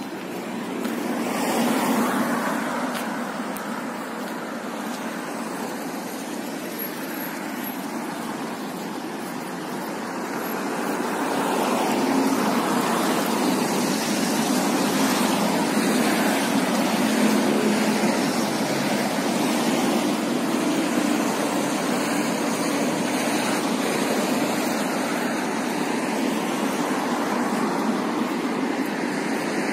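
City street traffic: a steady hiss of road noise, with vehicles swelling louder as they pass, once about two seconds in and again through the middle.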